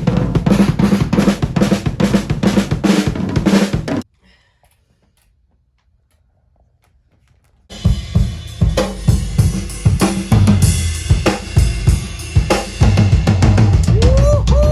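Rock drum kit played hard, with bass drum, snare, hi-hat and cymbals, in two passages separated by a few seconds' break. A short bending tone sounds over the drums near the end.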